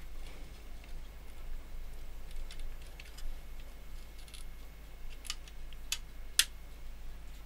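Light plastic clicks and taps from handling the opened SureSignal femtocell's casing and circuit board. A few sharper clicks come near the end, the loudest about six seconds in, over a steady low hum.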